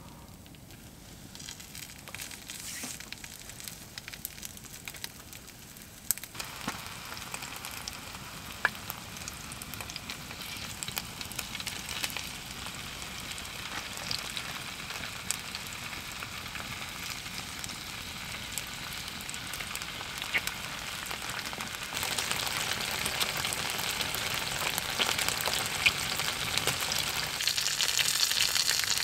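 Sausages and bacon frying in oil in a frying pan: a steady sizzle with spitting crackles. It gets louder as the food cooks, stepping up about six seconds in and again about twenty-two seconds in.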